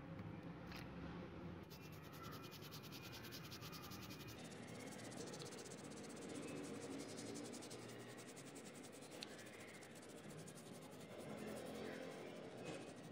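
Toothbrush bristles scrubbing the rusty metal body of a toy Chevy pickup, wet with soapy water: a soft, steady scratchy rubbing.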